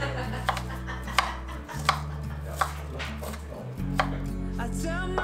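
Kitchen knife chopping onion on a bamboo cutting board: about five sharp knocks of the blade on the board, roughly one every 0.7 s. Music with a plucked melody comes in near the end.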